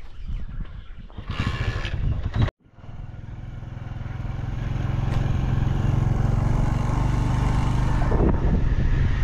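Motorcycle engine running steadily on the move, after a sudden break in the sound about two and a half seconds in; it grows louder over the next few seconds and then holds steady.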